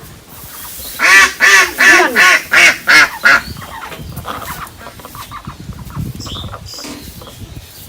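Domestic ducks quacking, crowding in to be fed paddy. It is a quick run of about seven loud quacks over two and a half seconds, then only quieter background sounds.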